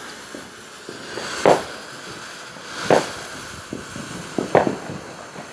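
Fireworks going off: three loud pops, roughly a second and a half apart, with a few fainter ones, over a steady hiss.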